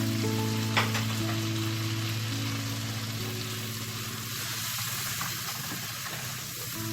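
Onion, garlic and tomato frying in a pan, sizzling steadily as they are stirred, with one sharp knock of the utensil about a second in.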